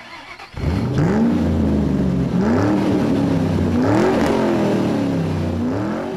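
A car engine revving four times, each rev climbing in pitch and then dropping back.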